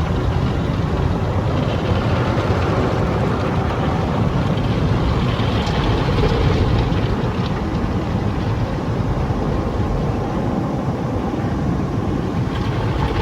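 Automatic car wash working over the car, heard from inside the cabin: a steady, loud rush of spray and machinery against the body.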